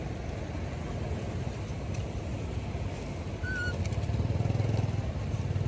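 A small engine running steadily, getting louder about three and a half seconds in. A brief high chirp comes at about the same moment.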